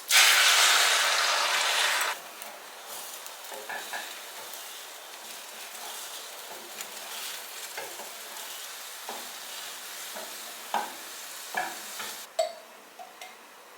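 Food frying in a hot pan: a loud sizzle for the first two seconds, then a quieter steady sizzle with a utensil stirring and knocking against the pan, dying down near the end.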